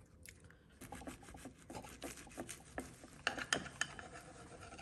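Knife sawing through a hamburger in quick back-and-forth strokes, with a few sharper scrapes about three seconds in.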